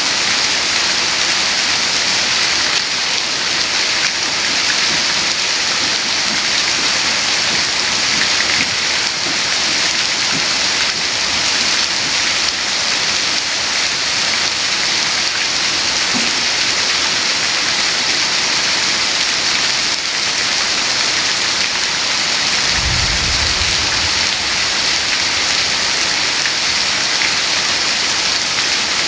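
Heavy rain falling steadily, a dense even hiss. About three-quarters of the way through comes a brief low rumble lasting a second or so.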